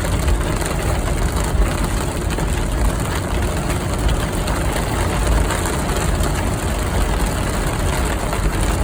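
Car cabin noise while driving in heavy rain: a steady low rumble of engine and road, with the hiss of rain on the car.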